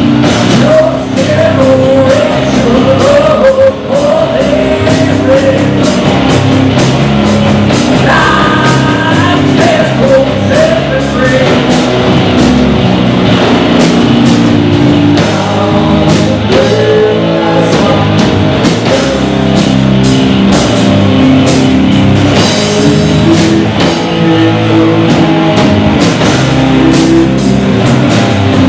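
Live rock band playing loudly: electric guitars and a drum kit, with a man singing into a microphone over them.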